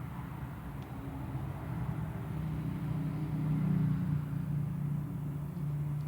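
Low steady background rumble that swells about three to four seconds in and eases off again.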